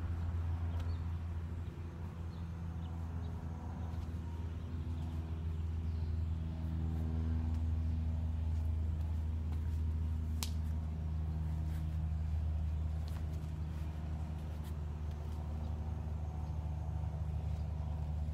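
Steady low engine hum, with a single sharp click about ten seconds in.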